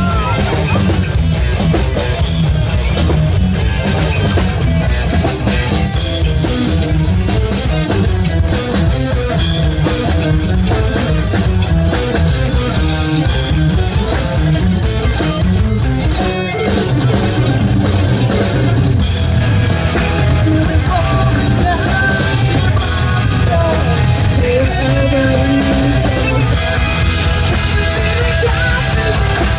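Live rock band playing loud: distorted electric guitar, bass guitar and drum kit, with a brief break about halfway through. A woman sings over the band in the second half.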